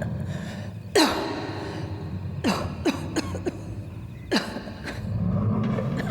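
A person coughing in short, harsh fits. One cough comes about a second in, three follow in quick succession around the middle, and one more comes later. A steady low hum runs underneath.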